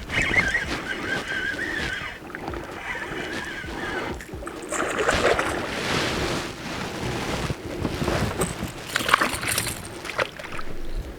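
Water splashing and sloshing around a small boat, swelling in two stretches in the middle and near the end.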